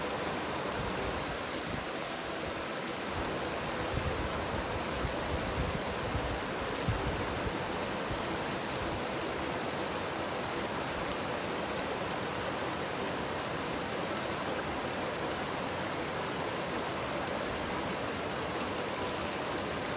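Shallow mountain stream rushing and splashing over boulders, a steady rush of water.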